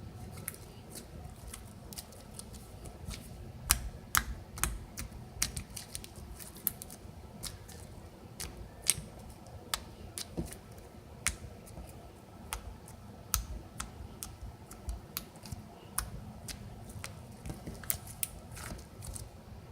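Slime being squished and pressed by hand, giving irregular sharp clicks and pops, roughly two a second.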